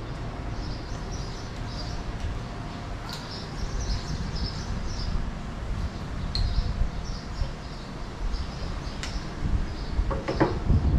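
Small birds chirping over and over, short high chirps every fraction of a second, over a steady low rumble. A brief louder sound rises in pitch near the end.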